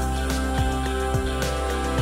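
Background music: held chords over a steady low beat, about two beats a second.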